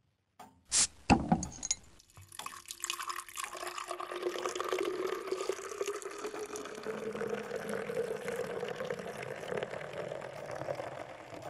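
A crown cap is popped off a beer bottle with a short hiss and clicks down onto the table, then beer is poured into a stemmed glass. The pouring tone rises slowly in pitch as the glass fills.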